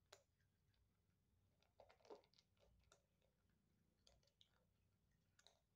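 Faint crunching of dry kibble as black Bombay kittens chew, in scattered small crunches with a short flurry about two seconds in.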